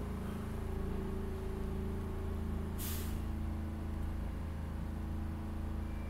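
Subway car standing still: steady low hum of its onboard equipment, with a short burst of air hiss about three seconds in, typical of the pneumatic brakes.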